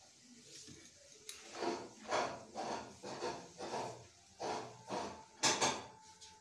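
Rice flour being added by hand to simmering water in a steel karai: a run of short, soft scraping and rustling strokes, about two a second, as each handful is scooped and dropped in.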